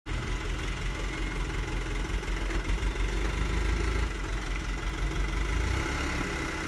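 Vehicle engine idling steadily, a low even hum with no revving.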